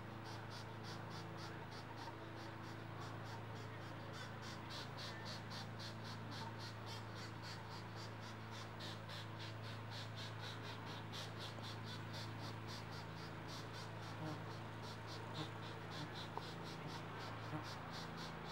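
Pileated woodpecker nestlings begging from the nest cavity while being fed: a fast, high, insect-like chirring of about five pulses a second, over a steady low hum.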